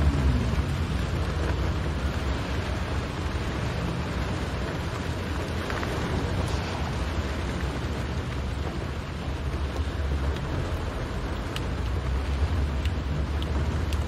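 Road and engine noise inside a car driving on a wet road in rain: a steady low rumble under a hiss, with a few faint ticks in the last few seconds.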